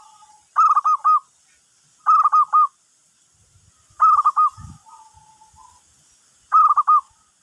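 Zebra dove (perkutut) cooing a lure call: four short phrases of quick repeated notes, one every second and a half to two seconds. Fainter, lower notes follow some of the phrases.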